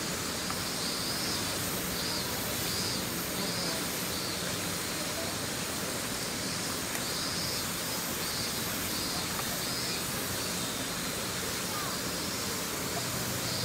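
Steady outdoor ambience: an even hiss with a high note pulsing about twice a second.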